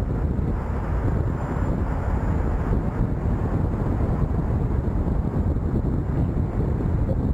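Steady wind rumble on the microphone from riding at speed on a Begode T4 electric unicycle, mixed with tyre and road noise.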